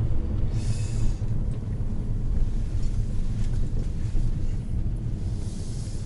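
Steady low road and tyre rumble inside the cabin of a moving Honda Odyssey minivan, with a rushing hiss rising briefly twice, about a second in and near the end.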